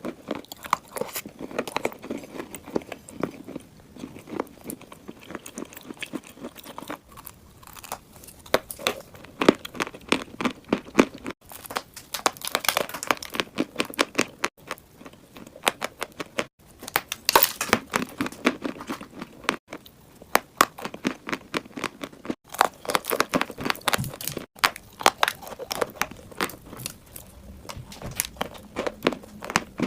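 Close-miked chewing of chunks of clay, with many sharp crunches in quick succession.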